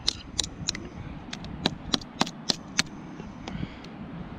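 Bushcraft knife blade striking a dead log, knocking off small branch stubs: a string of sharp knocks, about three a second, with a short gap about a second in and thinning out near the end.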